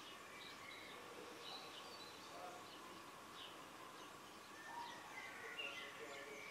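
Faint birds chirping: short scattered chirps and whistles, a little busier near the end, over a steady faint background hiss and hum.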